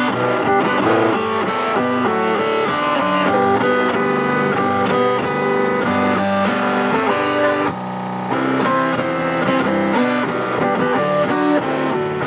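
Stepper motors of a DIY CNC milling machine playing a Christmas tune, the gantry moving in time with the notes to give a buzzy, pitched melody. It breaks off briefly about eight seconds in.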